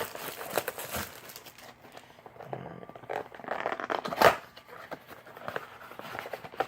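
Cardboard blaster box of trading cards being pried and torn open: crinkling and tearing of packaging, with scattered small clicks and one sharp snap about four seconds in. The box is a little difficult to open.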